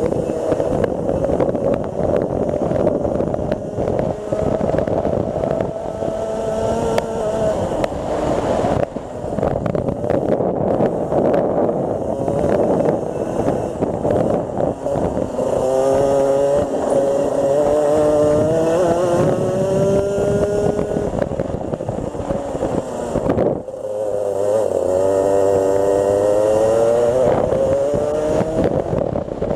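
Rotax Max 125 cc single-cylinder two-stroke kart engine heard onboard at racing speed, its pitch climbing for several seconds at a time along the straights and dropping sharply when the throttle is lifted for corners, most clearly about three-quarters of the way through.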